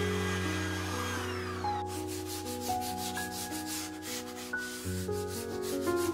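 A Makita cordless trim router's whine gliding down as the motor spins to a stop. Then a sheet of sandpaper is rubbed back and forth by hand along the freshly rounded ebony edge of the board, in quick rasping strokes about three to four a second.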